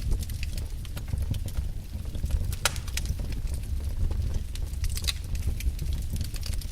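Wood fire in a fireplace crackling: irregular sharp pops and snaps over a steady low rumble of the burning fire.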